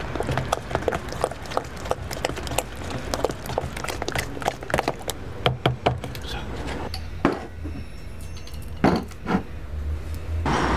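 A metal spoon stirring thick batter in a plastic tub: a quick, irregular run of clicks and scrapes against the tub for about six seconds, then a few separate knocks.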